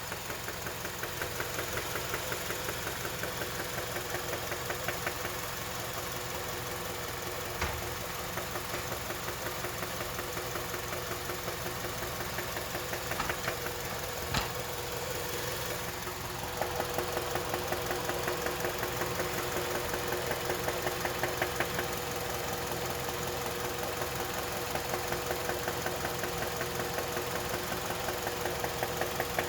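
Kia Magentis 2.0-litre G4KA four-cylinder petrol engine running with a steady, rhythmic knock. The knock is the kind of engine noise at which, by the owner's account, the car must not be driven further and needs immediate repair.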